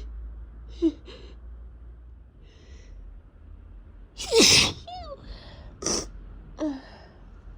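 Messy sneezes from a person with a head cold and a runny nose: one loud sneeze a little past halfway, then two shorter ones, with breathy intakes of air before them.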